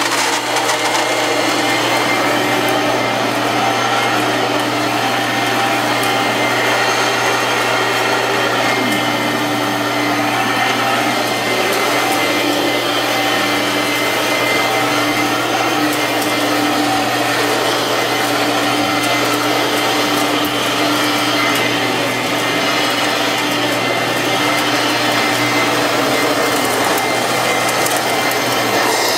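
Kenmore 6-amp two-speed twin-fan-motor vacuum cleaner running steadily and loud, a constant motor noise with a steady hum and a steady whine.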